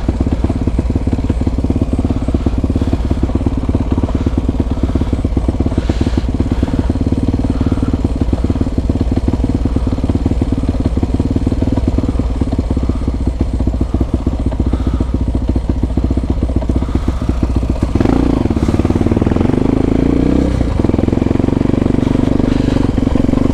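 Honda XR250 Tornado's single-cylinder engine running through a Belparts Classic aftermarket exhaust while riding at low speed, with a second motorcycle with an aftermarket exhaust riding just ahead. The engine gets louder about 18 seconds in.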